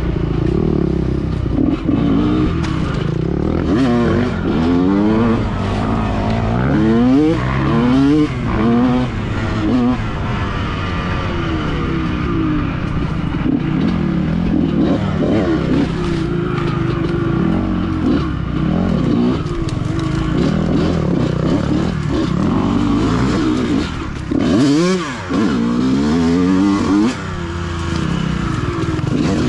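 Dirt bike engine revving up and down as it is ridden, the pitch rising and falling again and again with the throttle, briefly dropping off about three-quarters of the way through.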